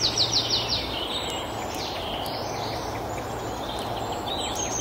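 A bird calling in a quick run of about five high notes, once at the start and again near the end, over steady outdoor background noise.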